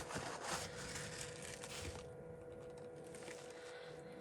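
Faint handling noise: light rustling and a few small clicks, over a low steady hum.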